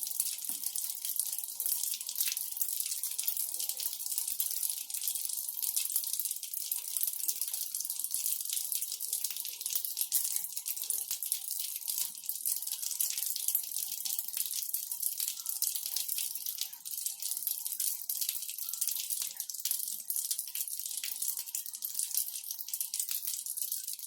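Water falling steadily onto a hard floor: a continuous splashing hiss full of small splatters, holding an even level throughout.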